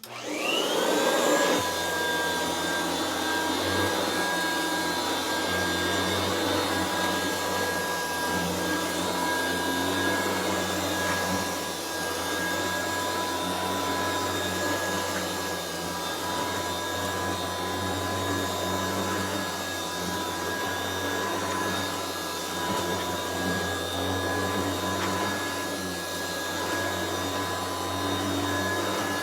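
Restored Kirby Classic 3 upright vacuum switched on: the motor spins up with a rising whine over the first second or so, then runs steadily with a steady whine and hum. It is a quieter-running Kirby, its motor on new bearings.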